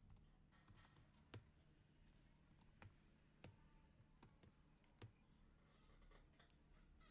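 Faint typing on a computer keyboard: scattered, irregular single keystrokes, a handful louder than the rest, over a faint steady low hum.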